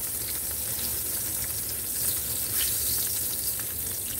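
Hot oil sizzling steadily in a skillet as flour-dredged pork chops fry, with a couple of faint clicks about two seconds in.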